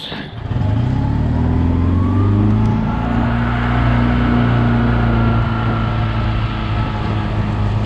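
Golf cart driving off, its motor note rising over the first two or three seconds and then holding steady.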